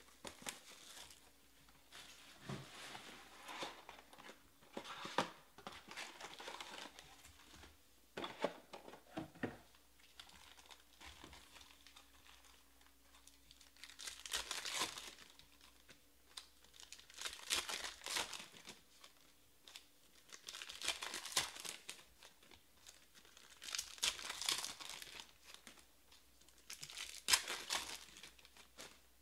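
Clear plastic wrap crinkling as it is pulled off a box of trading cards, then foil card packs crinkled and torn open. The crinkling comes in irregular bursts, growing stronger and coming every few seconds in the second half.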